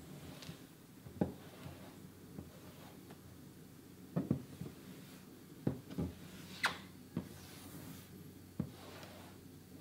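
Hands pressing and rubbing wet paint protection film onto a McLaren 12C's body panel: scattered soft knocks and rubbing, with one sharper, brighter click about two-thirds of the way in, over a low steady hum.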